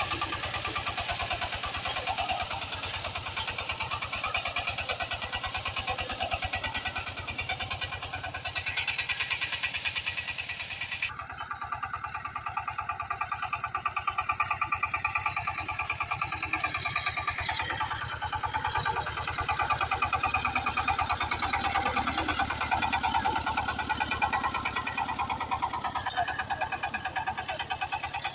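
Walking tractor engine running steadily under load as it pulls a disc plough through the soil, with a rapid, even firing beat. Its sound changes abruptly about eleven seconds in.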